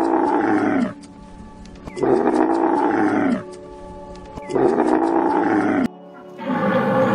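Camel groaning call, sounding three times at even spacing, each about a second and a half long and falling in pitch at its end. After a sudden cut near the end, a different, higher animal call begins.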